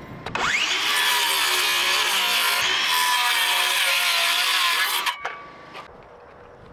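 DeWalt cordless circular saw spinning up with a rising whine and cutting through the 7/16-inch OSB sheathing at the end of a wooden floor truss. It runs steadily for about four and a half seconds and then stops, followed by a couple of knocks.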